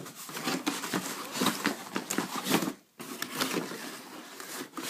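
Cardboard box and packaging of a metal detector being handled and rummaged through: irregular rustling, scraping and light knocks, with a brief break just under three seconds in.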